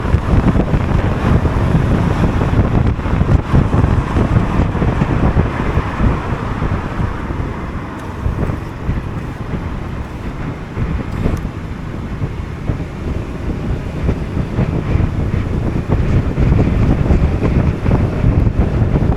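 Wind buffeting the microphone of a Honda Forza 250 scooter at riding speed, a steady low rumble with road noise beneath. It eases a little in the middle and picks up again near the end.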